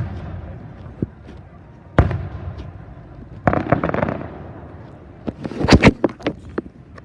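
Fireworks going off: a sharp bang about a second in and a louder one about two seconds in, a burst of crackling about three and a half seconds in, then a quick cluster of sharp pops and bangs near the end.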